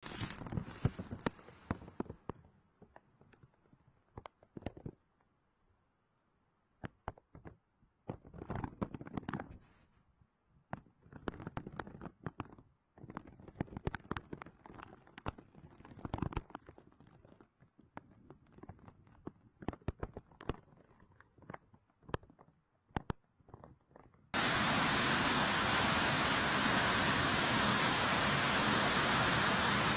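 Flash floodwater gushing through a street. For most of the stretch it comes through faint and choppy, dropping in and out with scattered crackles. Near the end it cuts abruptly to a steady, much louder rush of water.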